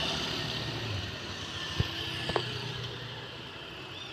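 Road traffic on the adjacent street: a steady vehicle noise slowly fading away, with two short sharp knocks a little under two seconds and about two and a half seconds in.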